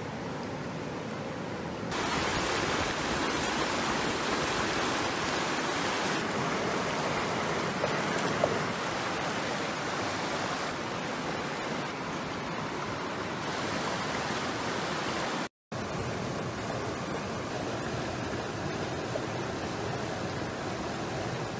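Steady rushing of a mountain stream over rocks. Its level steps up and down at several cuts, and there is a brief total dropout about three-quarters of the way through.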